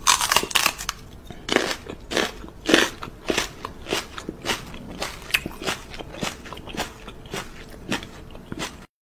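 A small dog and a woman chewing crunchy food close to the microphone, about two crunches a second.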